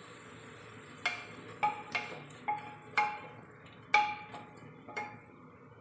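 Wooden spatula stirring onion and tomato masala in an aluminium pressure cooker, knocking against the pot about eight times in four seconds, each knock ringing briefly off the metal.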